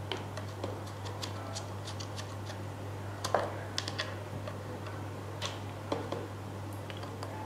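Small clicks and scratches of a geophone cable plug being worked into the connector port of an Instantel Micromate monitor, with a few sharper clicks about three and a half seconds in and again between five and a half and six seconds in.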